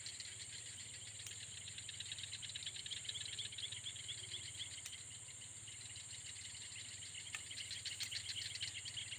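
Night chorus of crickets and other insects: a steady high-pitched buzz under fast, rhythmic chirping, with a faint low hum beneath.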